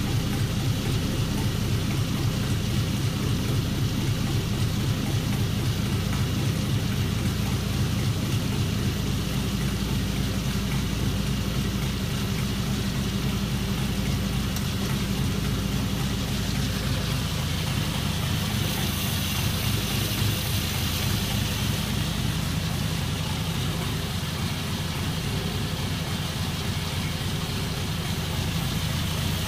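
1948 Cadillac 346 cubic-inch flathead V8 idling steadily at closed throttle. A higher airy hiss grows more noticeable about two-thirds of the way through.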